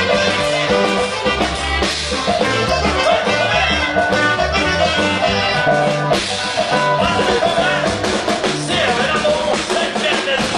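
Norteño band playing a huapango, an instrumental passage with bass and plucked strings under a steady, lively beat.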